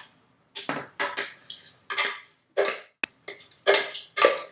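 A kitchen utensil scraping finely chopped herbs off a cutting board into a frying pan in a series of about eight short scraping strokes, with one sharp click about three seconds in.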